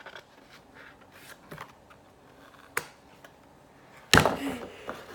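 Soft handling noises from a book being pulled out of a subscription box's packaging: scattered light clicks and rustles, one sharp click near the middle and a louder sudden rustle about four seconds in.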